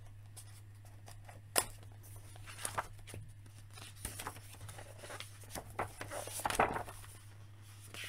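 Glossy pages of a large softcover rulebook being handled and turned: scattered paper rustles and soft taps, one sharper snap about a second and a half in and a longer rustle near the end, over a steady low hum.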